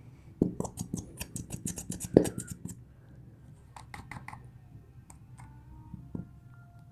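Rapid clicking, tapping and scratching from a plastic glitter glue container being handled to get the last glue out into a bowl. A quick run of taps for about two seconds, loudest about two seconds in, then a few more clicks and a single knock near the end.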